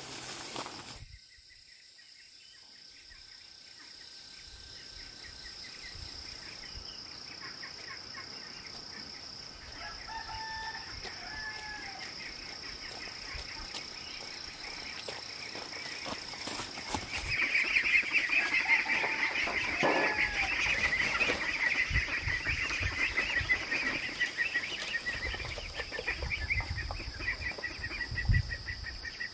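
A steady high insect trill, joined past the middle by a louder, fast-pulsing insect chorus, with a few short bird calls. Low thumps come near the end.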